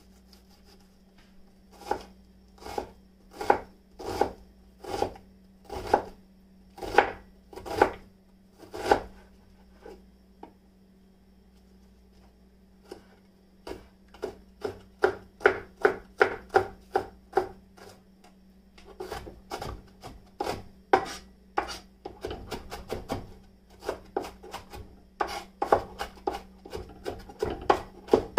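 Chef's knife dicing an onion on a cutting board. First come slow single cuts about a second apart, then after a short pause quicker runs of chopping, several strokes a second. A steady low hum runs underneath.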